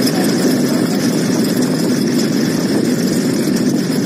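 Steady, loud engine noise running unbroken throughout, with no distinct events.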